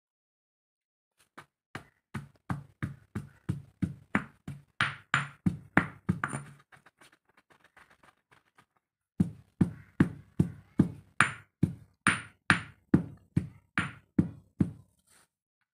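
Stone pestle pounding crumbly lumps in a stone mortar: a steady run of knocking, crunching strikes about two to three a second, a short pause with faint scraping partway through, then another run of strikes.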